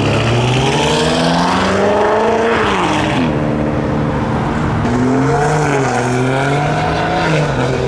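Car engine revving hard. Its pitch climbs for about two and a half seconds, drops sharply, then rises and wavers again before falling near the end.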